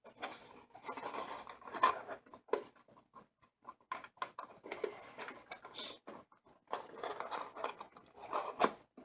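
Cardboard and plastic packaging of a CPU retail box being handled, rustling and rubbing in uneven scratchy bursts with small clicks, as the stock fan and heatsink are taken out.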